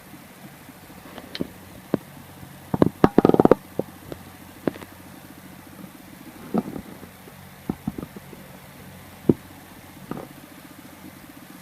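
Scattered sharp clicks and taps, with a quick run of them about three seconds in and single ones every second or so after, over a steady low hum.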